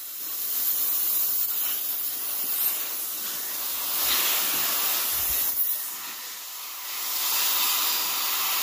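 Compressed air hissing from an air-hose nozzle blown under a snowmobile handlebar grip to slide the grip back onto the bar. The hiss swells and eases a few times as the air flow changes.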